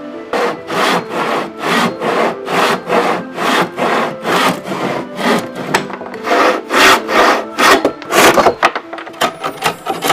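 Rhythmic back-and-forth strokes on wood, like hand sawing or rasping, about two a second and growing quicker near the end, over soft background music.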